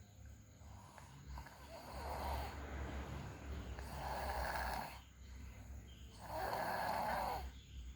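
Snoring: three loud snores about two seconds apart, with quieter breathing between them.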